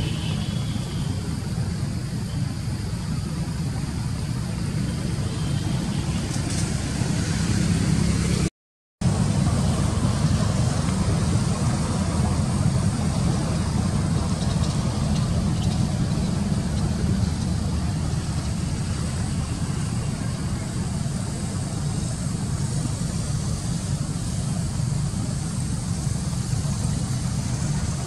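Steady low rumbling background noise, cut by a brief dropout to silence about eight and a half seconds in.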